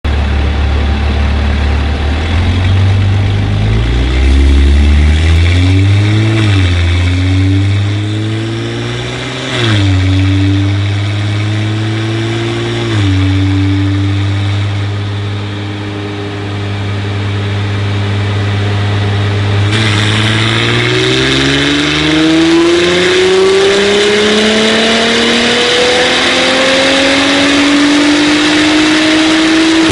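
Audi S4 B9's turbocharged 3.0-litre V6 through an Armytrix full exhaust on a chassis dyno: running steadily, then several rises and falls in revs. From about two-thirds of the way through it climbs slowly and steadily in revs under load, with a rushing noise rising along with it.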